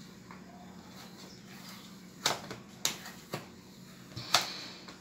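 Handling noise from a plastic squeeze bottle of topping worked over a plastic tub on a stainless-steel counter: a few sharp clicks and knocks about two seconds in, then a louder click with a brief hiss a little past four seconds.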